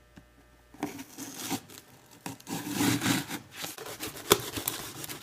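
Hand tool work on a microwave's control board: irregular rasping and scraping strokes, with a few sharp knocks in the second half.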